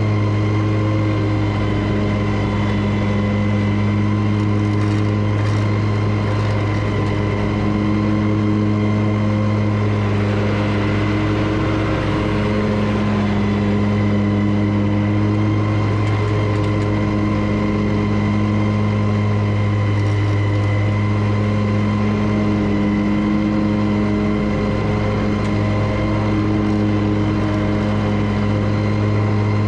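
Lawn mower engine running steadily at constant throttle while mowing, with an even, unchanging hum.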